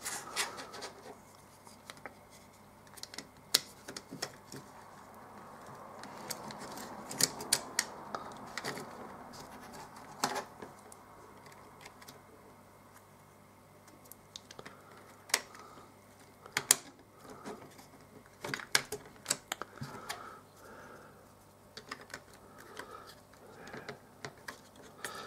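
Scattered light clicks and taps of clear acrylic case panels being handled and pressed onto an oscilloscope kit's circuit board.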